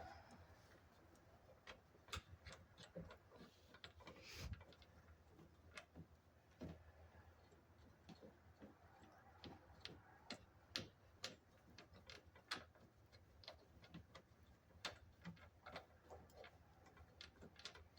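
Faint, irregular clicks and light taps of bolts and mounting hardware being handled by hand.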